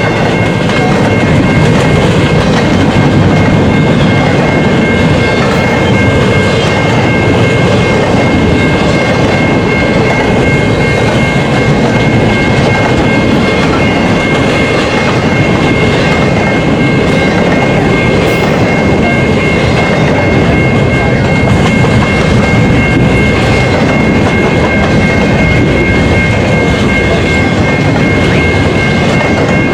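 Freight cars of a long intermodal train rolling past at speed: a loud, steady rumble with rattling clickety-clack of wheels over rail joints, and a thin high-pitched ring from the wheels running throughout.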